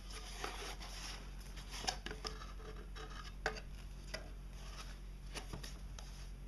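Cardboard lens box being opened and handled: scattered rustling with light taps and scrapes every second or so.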